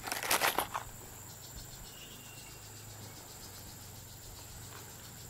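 A brief rustle and clatter of handling in the first second, then steady insect chirring, with a continuous thin high-pitched tone and a faint quick pulsing.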